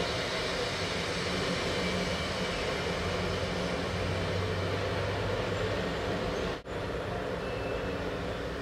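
Steady rushing background noise with a low hum underneath, broken once by a brief dropout late on.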